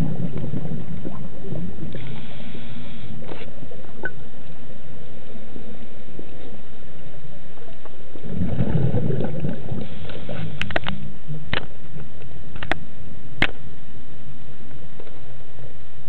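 Underwater recording near a scuba diver. Bursts of exhaled regulator bubbles gurgle at the start and again about eight seconds in, over a steady low rumble, and several sharp clicks come a little after the second burst.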